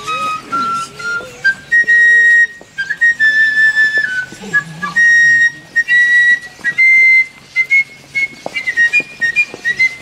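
A high-pitched flute playing a slow melody of held notes, stepping up and down, some notes held for about a second.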